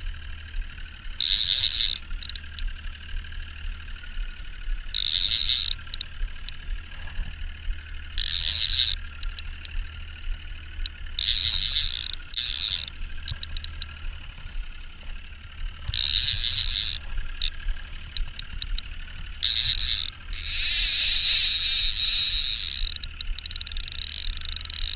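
Okuma Magda Pro line-counter trolling reel ratcheting in bursts of about a second every few seconds, with one longer run of two to three seconds about twenty seconds in. A steady low hum runs underneath.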